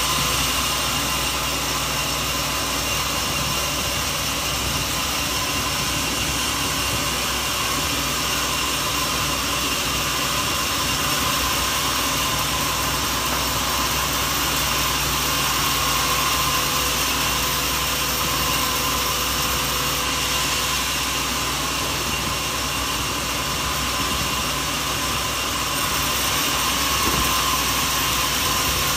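Sawmill machinery running steadily: a continuous mechanical drone with a faint steady whine over it.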